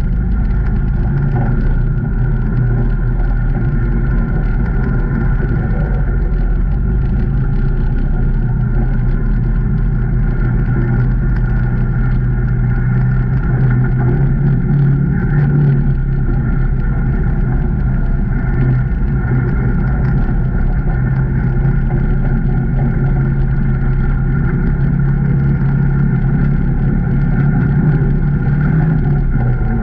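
2019 Can-Am Maverick Trail 800 side-by-side's V-twin engine running steadily under way on the trail, a continuous drone whose pitch and level rise slightly a couple of times.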